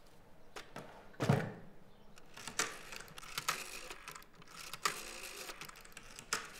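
Black rotary desk telephone being operated to place a call: a firm knock about a second in, then a run of separate clicks as the rotary dial is turned and let go.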